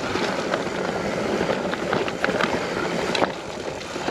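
Mountain bike ridden over a rough trail: steady tyre and wind noise with frequent small knocks and rattles from the bike.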